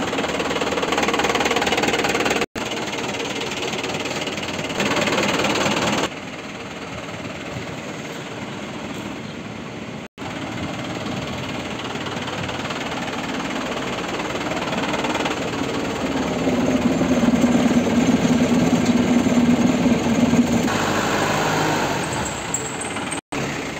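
Tata LPT 407 truck's diesel engine running at idle with a diesel knock, getting louder and steadier for a few seconds about two-thirds of the way through. The sound drops out for an instant three times.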